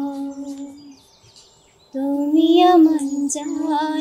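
A woman singing a slow melody, holding long notes. One phrase ends about a second in, and after a short pause she sings a longer phrase whose pitch rises and wavers.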